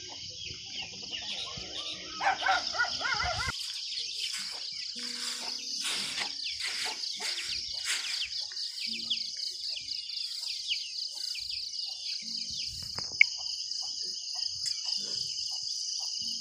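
Crickets trilling in a steady, high-pitched chorus, with birds chirping over it in quick, downward-sliding notes. A short, louder call comes about two seconds in, and a single sharp click near the end.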